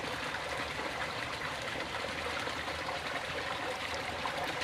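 Water trickling and flowing steadily in a shallow stream.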